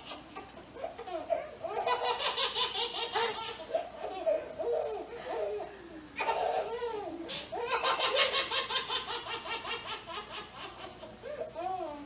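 A baby laughing in runs of rapid laugh pulses, with a short break about six seconds in and another near the end.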